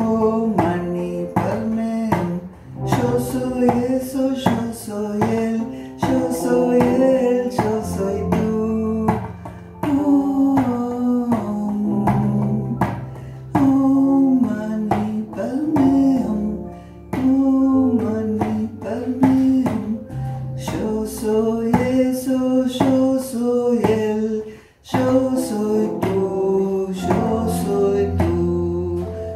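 A woman singing a chant-like melody while beating a steady rhythm on a djembe hand drum.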